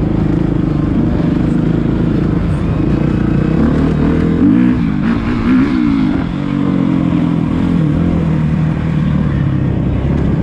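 Motocross dirt bike engines running on the track, their pitch rising and falling as the riders work the throttle, with the sharpest revving about halfway through.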